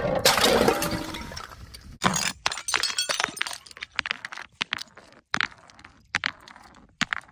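A glass bottle smashing with a loud crash that rings down over about two seconds. A second crash follows about two seconds in, then a run of separate clinks and tinkles from glass pieces landing and settling, thinning out toward the end.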